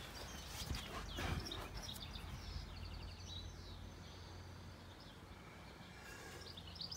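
Faint birds chirping, with short repeated trills, over a low steady hum, and a soft knock about a second in.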